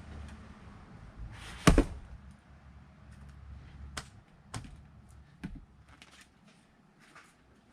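An axe blow splitting a log of firewood: one sharp, loud strike about two seconds in, followed by a few lighter knocks of wood.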